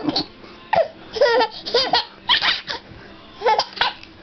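A young child laughing in a series of short, high bursts of giggles, set off by his father's pretend hiccups.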